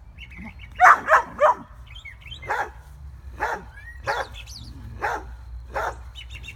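A dog barking repeatedly at play, about one bark a second, with a quick run of three louder barks about a second in.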